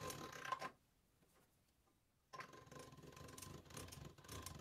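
Hand-cranked pasta machine turning, its gears and rollers ticking faintly as folded egg-noodle dough is rolled through at the thickest setting. It stops a little under a second in and starts again about two seconds later.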